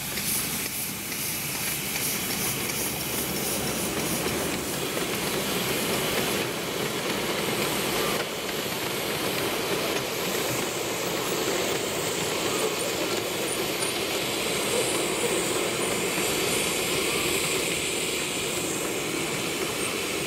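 Miniature steam train passing: the locomotive and its coaches rolling by on the track with a steady rumble of wheels on rail and some steam hiss.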